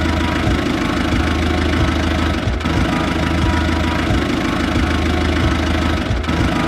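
Vehicle engine running steadily with a fast, even chugging pulse. It drops out briefly about two and a half seconds in and again near the end.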